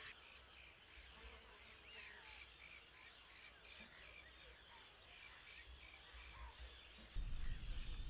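Faint birds calling: a run of short, evenly repeated high notes with a few rising calls, over light wind. About seven seconds in, a louder low wind rumble on the microphone starts suddenly.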